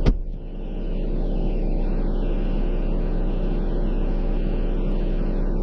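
Jeep engine running with a steady low drone, after a sharp click right at the start.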